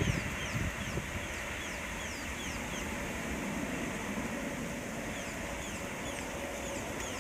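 Outdoor ambience: a steady hiss with a bird's short, high, falling chirps repeated about two to three times a second.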